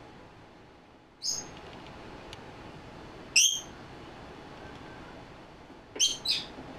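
Small pet parrot giving short, shrill calls: one about a second in, a louder one in the middle, and two in quick succession near the end.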